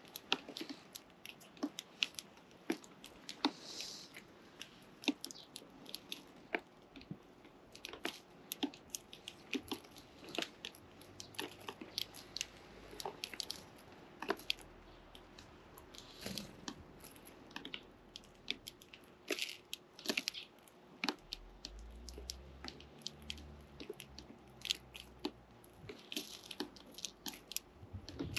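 Sparrow chicks pecking at food: a dense, irregular run of sharp little clicks and taps, several a second, with no calls.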